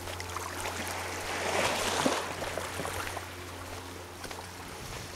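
Small waves lapping and trickling at the edge of a shallow sandy shore, rising for a moment about two seconds in.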